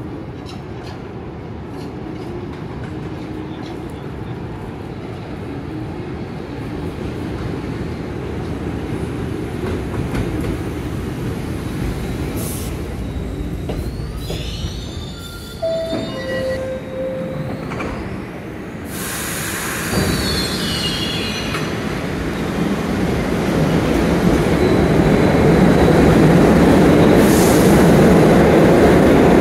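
R62A New York subway cars running through a station, with a steady rumble of steel wheels on rail and short high wheel squeals. After a sudden cut, another R62A train runs past in an underground station, growing louder toward the end.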